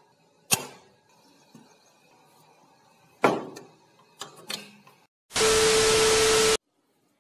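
Metal slide bolt on a screen door being worked, giving a few sharp metallic clacks, the loudest about three seconds in. About five seconds in, a burst of TV-static hiss with a steady beep through it lasts just over a second and cuts off sharply.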